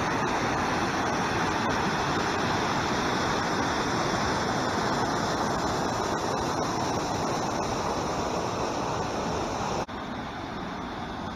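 Whitewater of a small waterfall and rapids on a stream rushing steadily. About ten seconds in, it drops suddenly to a quieter rush.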